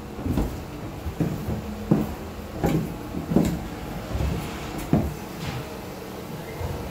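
Footsteps on a debris-strewn concrete floor, a sharp step or knock every half second to second at an uneven pace.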